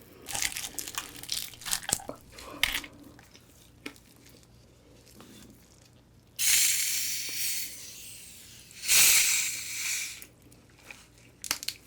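Plastic packaging crinkling with sharp crackles, then two loud ripping sounds, each about a second and a half long, starting about six and nine seconds in.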